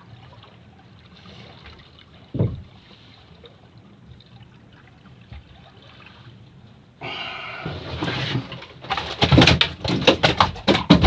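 Low steady background with a single knock about two and a half seconds in. Then, about seven seconds in, a hooked fish starts splashing and thrashing hard at the water's surface, in a rapid run of sharp splashes.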